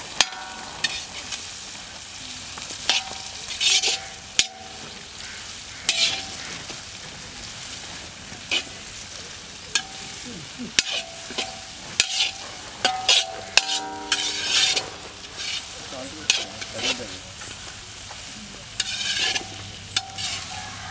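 Steel skimmer ladle scraping and clanking against a large iron kadai as diced vegetables are stir-fried, with a steady sizzle underneath. The strokes come irregularly, about one a second, and some leave the wok ringing briefly.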